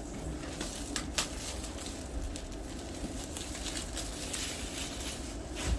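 Plastic wrap and cardboard box rustling as a packaged laptop box is handled and unwrapped, with a few sharp taps and knocks.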